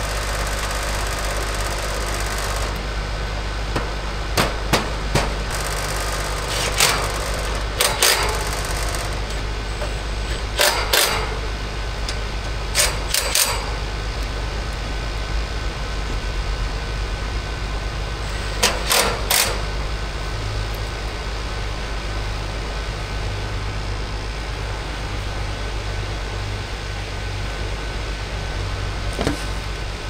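Three-phase Goodman air-conditioner condensing unit running steadily, its compressor and condenser fan giving a constant low hum, now running as it should after a faulty contactor was replaced. Sharp clicks, mostly in pairs, come now and then over the hum.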